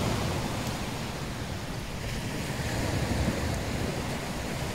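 Wind buffeting the microphone over the wash of sea waves on the shore: a steady rushing noise.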